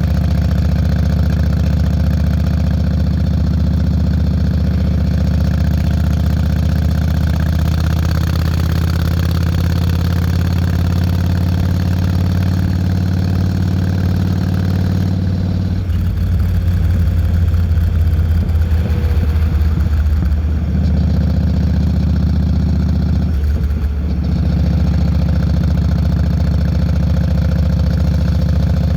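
Yamaha Road Star 1600's air-cooled V-twin running through Vance & Hines Longshots exhaust pipes at steady low revs while riding. The exhaust note thins for a few seconds about halfway through and dips again briefly near the end.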